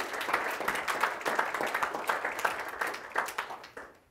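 Small audience applauding, a dense patter of hand claps that dies away near the end.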